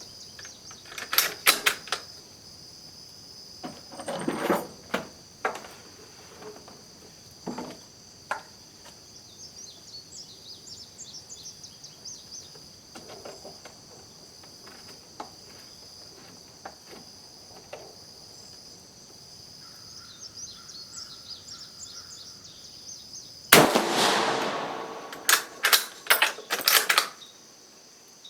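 One rifle shot from a bolt-action Carcano M38 short rifle in 7.35 mm, fired about three-quarters of the way through and ringing away for about a second. Several sharp metallic clicks follow, typical of the bolt being worked. Scattered knocks and clicks of rifle handling come earlier, and crickets chirp steadily throughout.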